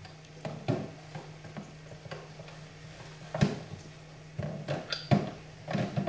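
Wooden chess pieces knocking and clicking on a wooden chessboard as pieces are moved and set down: a few light knocks, the sharpest about three and a half seconds in and a quick cluster near the end.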